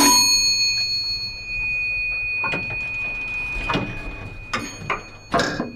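A single elevator arrival chime struck once, its high bell-like note ringing on while the brighter overtones fade within a second or so. A few scattered clicks and knocks sound in the second half.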